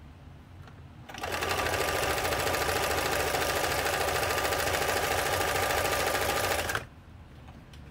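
Montgomery Ward J1460 sewing machine running at a steady speed, sewing a zigzag stitch through flannel. It starts about a second in and stops abruptly about a second before the end.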